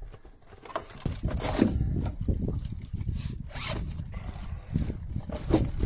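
Wind rumbling on the microphone, with irregular rustling and scraping from someone moving and handling things close to the camera in a small boat.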